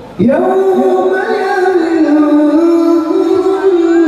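A male qari's voice chanting Quran recitation in the melodic tilawah style, amplified through a microphone and loudspeakers. He comes in about a quarter second in and holds long, high notes that step and turn through ornamented melodic runs.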